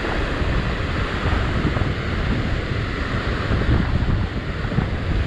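Ocean surf surging and washing over shoreline rocks, with wind buffeting the microphone in a steady, rumbling rush.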